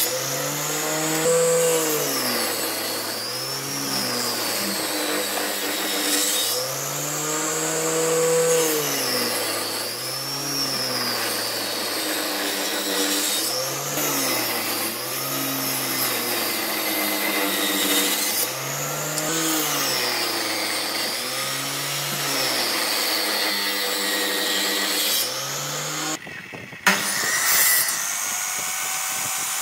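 A woodworking power tool running, its motor pitch swelling up and falling back again about every two seconds. About three seconds before the end the sound drops out briefly, then there is a short loud noise.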